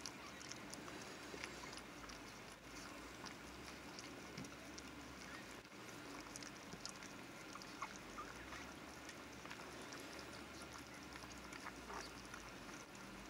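Mother dog licking her newborn puppy: faint, wet licking and small clicking sounds scattered throughout.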